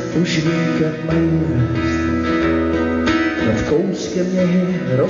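Acoustic guitar strumming chords in a song's instrumental opening.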